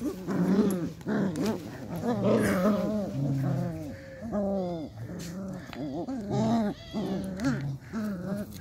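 Beagle puppies growling and whining as they play tug-of-war, a quick run of short, wavering growls one after another.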